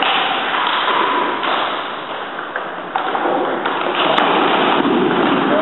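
Table tennis ball being hit with bats and bouncing on the table in a rally: a few short, sharp taps over constant background noise.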